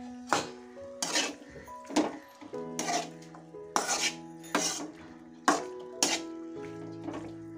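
A spatula scraping and clinking against a metal kadhai while macaroni is stirred, a stroke about once a second, over soft background music.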